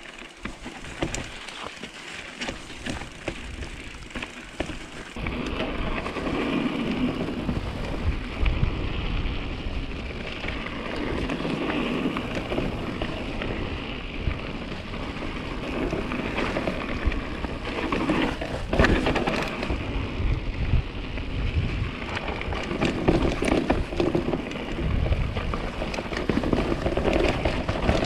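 Mountain bike riding over a snowy trail: tyres crunching and rolling over snow and stones, with the bike rattling over bumps in frequent sharp clicks and wind rumbling on the microphone. It gets louder about five seconds in.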